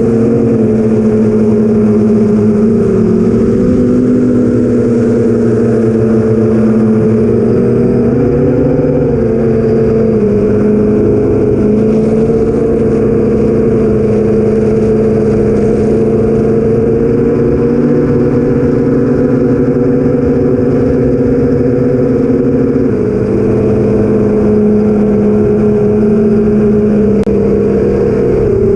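An 8-inch FPV quadcopter's four BrotherHobby Avenger 2812 1115kv brushless motors spinning Master Airscrew 8045 props in flight, heard from the onboard camera. A loud, steady buzz whose pitch wavers slightly with throttle and dips a little about two-thirds of the way in.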